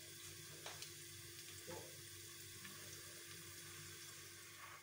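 Near silence: faint room tone of steady hum and hiss, with two soft taps about a second apart.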